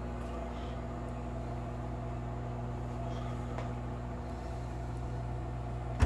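Microwave oven running with a steady low hum while it cooks eggs in a glass measuring cup; the hum cuts off at the very end.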